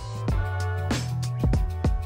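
Background music with a steady beat: bass, sustained pitched notes and regular drum hits.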